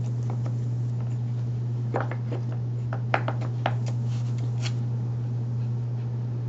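A few short plastic clicks and knocks as a dog noses and paws the sliding pieces of a Nina Ottosson Dog Fighter puzzle toy, clustered in the middle, over a steady low hum.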